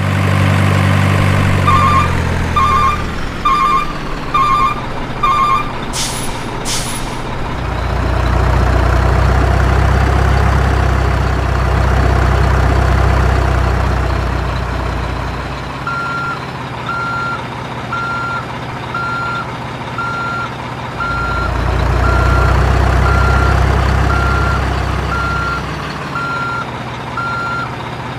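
Heavy truck's reversing alarm beeping at an even pace, five beeps and then a longer run of beeps later on, over a steady diesel-type engine drone that swells louder twice. Two short bursts of air hiss come about six seconds in, like an air brake releasing.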